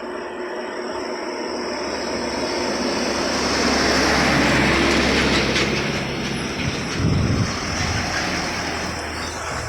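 Train passing close by: a rushing rumble with a steady low engine drone that grows to its loudest about halfway through, with a few clicks from the wheels on the rails, then eases off.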